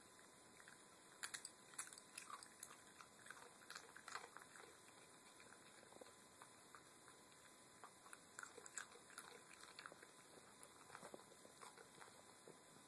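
A small dog crunching and chewing Sun Chips: faint, crisp crackles in irregular clusters, loudest a little over a second in and again around four seconds in.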